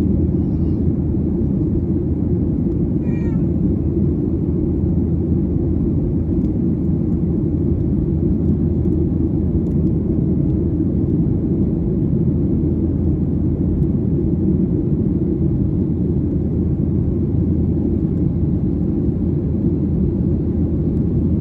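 Steady low rumble of a Boeing 737-800's engines and airflow heard inside the passenger cabin during the climb. Two brief, faint, wavering high-pitched cries come near the start and about three seconds in.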